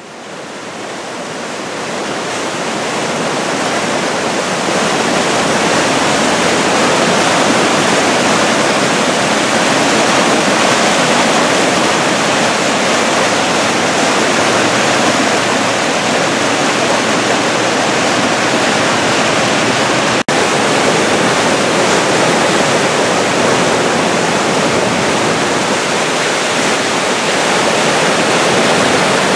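Flooded brook rushing in whitewater rapids below a road bridge, a steady loud rush of water that fades in over the first few seconds, with a momentary dropout about twenty seconds in. The brook is over its banks in flood from a thaw and heavy rain.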